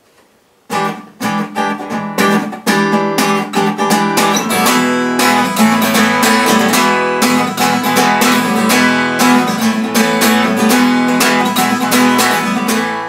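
Acoustic guitar strummed, a run of chords in a steady rhythm starting about a second in and ringing on at the end.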